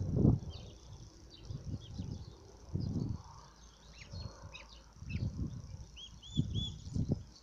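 Young poultry chicks peeping in many short, high chirps, with several dull low bumps and rustles scattered through.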